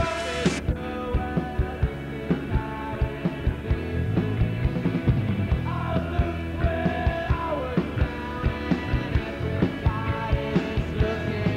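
Live rock band playing: a steady drumbeat with a cymbal crash in the first half second, bass and electric guitars, and a singer's voice over them.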